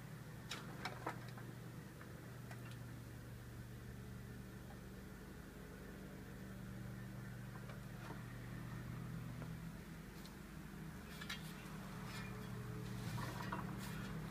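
Steady low motor hum, with a few sharp clicks and rattles of metal parts about a second in and again toward the end.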